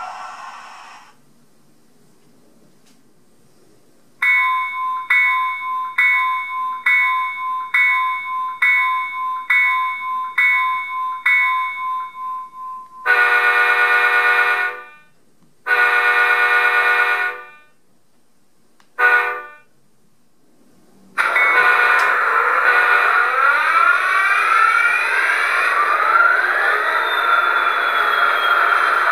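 Sound decoder of an HO-scale model F59PHi diesel locomotive, playing through its small speaker: the simulated EMD 710 engine dies away at the end of its shutdown sound. After a short quiet, the bell rings about a dozen times, about one strike a second, then the horn sounds two long blasts and a short one. The engine sound then starts up again with a whine rising in pitch.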